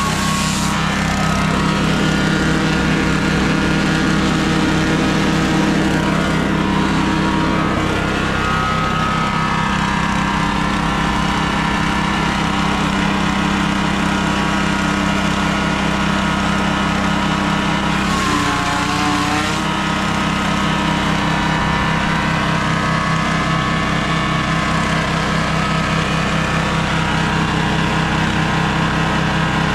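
Grass chopper driven by a small 7 hp engine, running steadily while grass stalks are fed through its blades and chopped. The engine note wavers briefly twice, about 8 and 18 seconds in.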